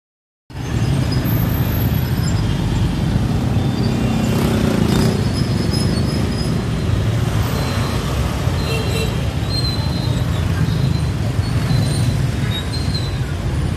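Dense city motorbike and scooter traffic: a steady rumble of many small engines passing at once. A louder vehicle goes by about four to five seconds in.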